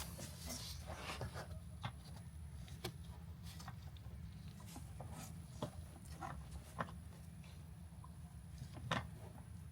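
Faint, scattered clicks and light taps of hands handling parts, over a steady low hum, with a sharper click about nine seconds in.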